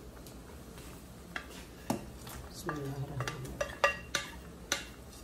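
A wooden spatula tapping and scraping against a plate and the rim of a metal pot as shrimp are pushed into the soup: a handful of sharp clinks and knocks, several in quick succession about four seconds in.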